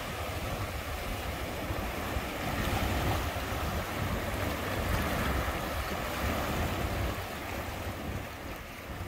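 Surf washing onto a sandy beach, with wind buffeting the microphone as a low rumble. It starts abruptly and fades away near the end.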